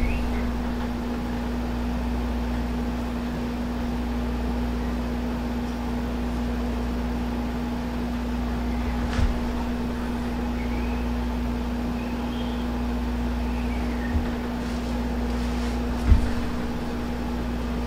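Steady machine hum: a constant low drone with one held tone, like a fan or air-conditioning unit running. Two soft knocks come about nine and sixteen seconds in.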